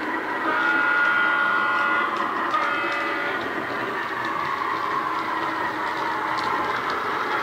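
Bachmann Class 03 shunter model playing a Legomanbiffo sound file on an ESU LokSound Micro decoder through a sugarcube speaker: the recorded diesel engine runs as the locomotive moves off. The horn sounds twice, a longer lower note about half a second in and a shorter, higher note near three seconds.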